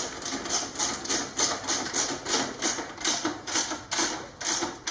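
Socket ratchet clicking in quick, even strokes, about three a second, as a fastener on the motorcycle's exhaust is tightened.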